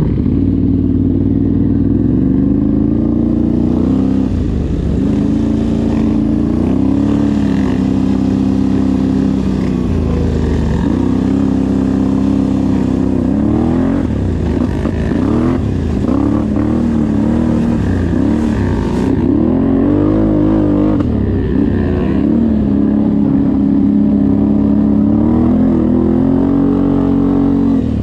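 Off-road vehicle engine running under load on a trail, its pitch repeatedly rising and falling as the throttle is worked and gears change.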